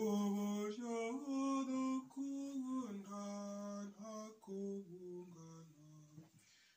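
A voice humming a slow, wordless hymn tune in long held notes that step up and down between short breaks, growing quieter near the end.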